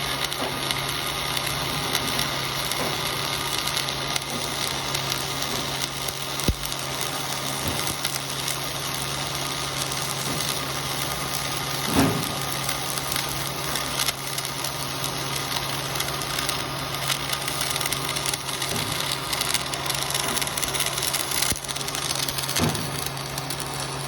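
Welding arc crackling and sizzling steadily as a bead is run, with a steady low hum underneath and a few sharper pops, the loudest about midway.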